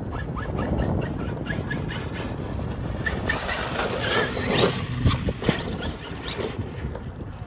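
Losi DBXL-E 2.0 electric RC buggy driving on dirt: its brushless motor whines in short squealing bursts as the throttle is worked, over the rush of tyres on loose ground, with a louder burst about four and a half seconds in.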